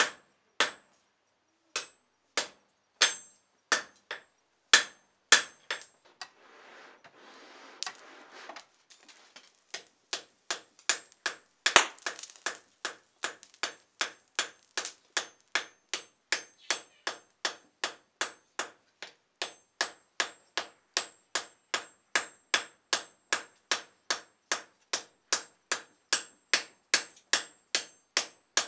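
Hand hammer striking white-hot steel on a block anvil while forge-welding a high-carbon steel piece onto mild steel, each blow short and ringing. The blows come singly at first, then settle into a steady run of about two to three a second.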